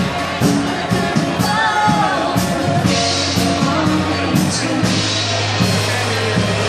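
Live pop-rock band playing: a drum kit with cymbal strikes about twice a second over keyboards, with a woman singing.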